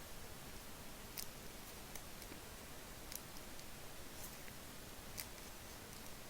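Faint clicks and snaps of Topps Chrome baseball cards being flipped through by hand, roughly one a second, over a steady hiss.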